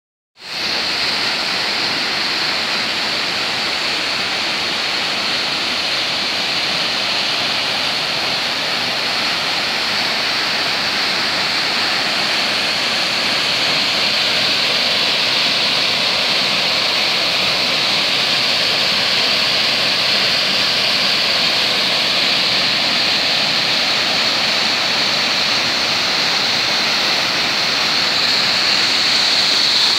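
Waterfall plunging down a rock face into a pool: a steady rush of falling water.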